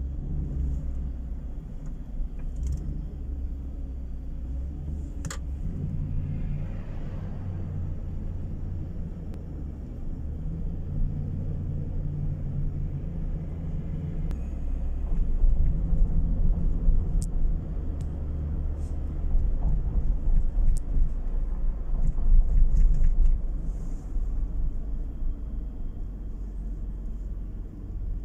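Steady low rumble of a moving car, road and engine noise heard inside the cabin, growing somewhat louder about halfway through, with a few faint clicks.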